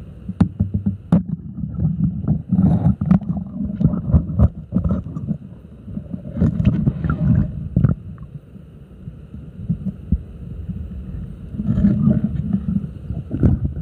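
Muffled underwater noise picked up by a camera submerged in a river: low rumbling thuds, gurgling and sharp clicks from the diver's movement, coming in three louder surges.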